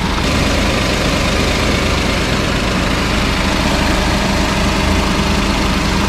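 Suzuki-built 660 cc three-cylinder engine of a Mazda AZ-Wagon idling steadily with the air conditioning switched on while refrigerant is charged, under a steady rushing noise.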